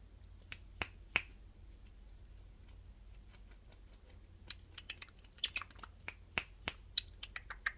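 A cat licking and grooming its front paw close to the microphone: irregular sharp, wet clicking licks, a few near the start and a quicker run of them in the second half.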